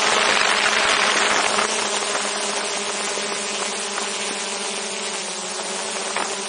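DJI Mavic 2 Zoom quadcopter's motors and propellers, heard from a camera slung beneath it: a steady buzzing hum with a whine over a rush of air, louder in the first second or so.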